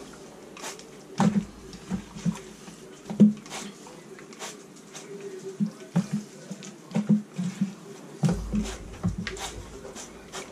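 Repeated short spritzes from a trigger oil sprayer misting olive oil onto raw chicken halves, mixed with gloved hands rubbing and patting the wet chicken skin on a metal sheet pan. The strokes come irregularly, a few every couple of seconds.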